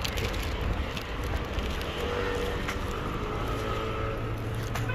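Street traffic: a motor vehicle's engine running with a steady low rumble, a steady tone joining in about two seconds in.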